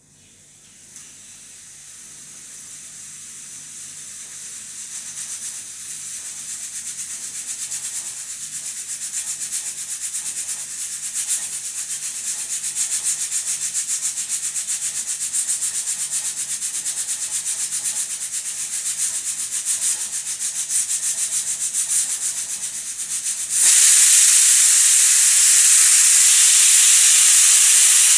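Stovetop pressure cooker's weighted steam valve hissing as pressure builds, growing louder over the first several seconds into a fast, fluttering hiss. About 23 seconds in it breaks into a much louder full whistle: the cooker has reached pressure and is venting, one of the whistles counted to time the cooking.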